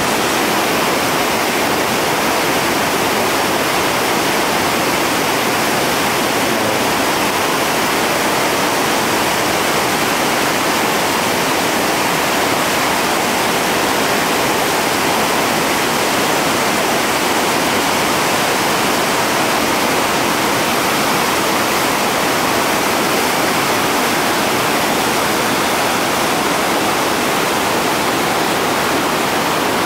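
Steady, loud rushing of whitewater pouring over a seven-foot river falls and through the rapid below it.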